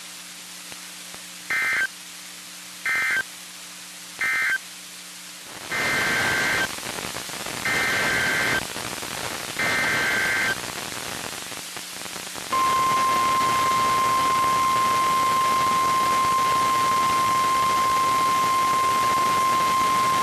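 NOAA Weather Radio Emergency Alert System signalling: three short bursts of warbling SAME data tones, the end-of-message code of the warning just read, then three longer SAME header bursts, the digital code of the next warning. About twelve seconds in, the steady 1050 Hz weather-radio alert tone sounds and holds, over radio static.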